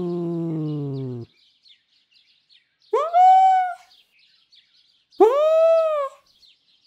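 Domestic cat's annoyed, agitated vocalizations: a long low growling moan falling in pitch ends about a second in. After a pause come two short arching moans, each under a second long and about two seconds apart.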